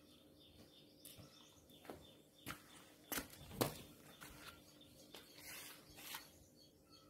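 Several light knocks and clicks of objects being handled, the loudest about three and a half seconds in, with brief rustles near the end. Faint bird chirps sound behind.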